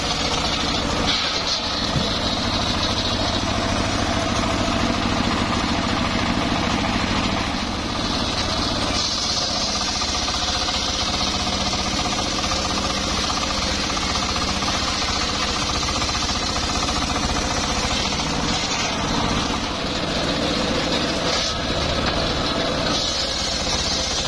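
Homemade circular sawmill's blade ripping lengthwise through a log over the steady drone of the engine that drives it. The hiss of the cut comes and goes as the log is fed, easing around eight seconds in and again near twenty.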